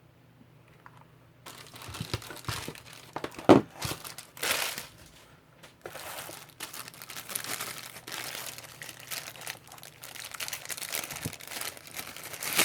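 Plastic packaging crinkling and rustling as it is handled, with a few sharp clicks and knocks among the rustles; it starts about a second and a half in.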